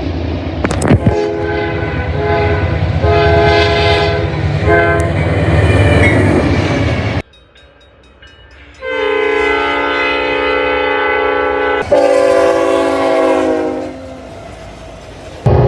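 Train horns in two back-to-back recordings. The first horn sounds in several blasts over the low rumble of the train and cuts off abruptly about seven seconds in. After a short quiet gap, a second horn gives a long steady blast that stops about fourteen seconds in.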